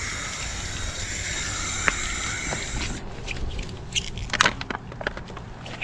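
Garden hose spray nozzle spraying water onto a hard round surface, a steady hiss that stops about three seconds in. Then a few sharp clicks and rustles of handling.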